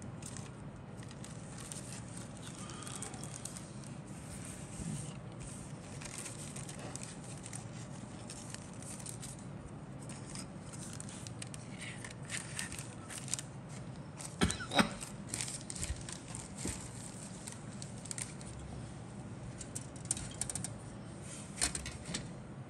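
Plastic model kit parts being handled: clear plastic packaging crinkling and rustling, and hard plastic sprues and parts clicking and rattling. There is a louder cluster of knocks about two-thirds of the way through, over a steady low hum.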